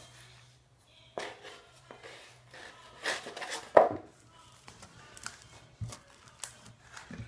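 Homemade glue-and-borax slime being worked by hand in a cup: irregular wet squishing and crackling with clicks, loudest a sharp pop about four seconds in.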